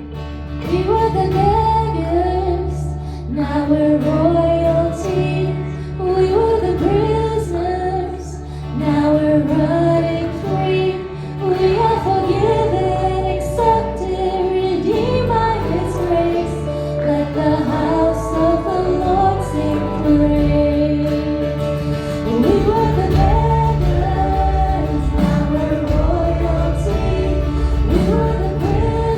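Worship song: a sung melody line over sustained instrumental chords.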